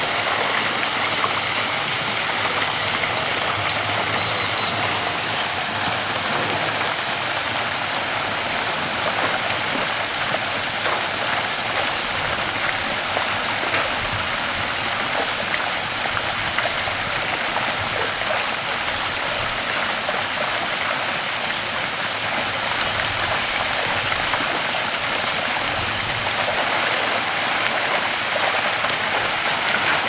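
Shallow stream pouring over a small waterfall: a steady, even rush of water.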